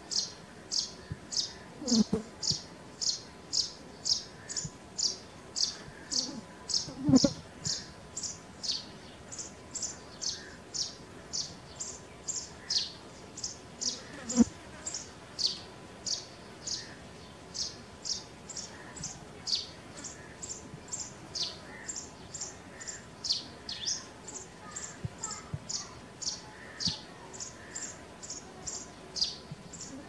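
Sparrow chirping over and over, short high chirps about one and a half a second, with a few dull thumps in the background, one of them loud.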